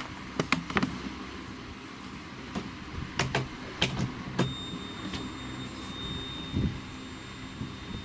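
Clicks and knocks of a Seaward Europa Plus PAT tester's plastic case and mains lead being handled. About four and a half seconds in, a click is followed by a faint steady high-pitched whine as the tester powers up.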